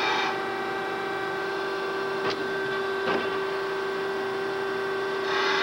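Winslomatic 100C drill grinder running with a steady motor hum while a diamond dresser trues its grinding stone. A gritty hiss of the dresser cutting the stone is heard at the very start and again near the end, with two light clicks in between.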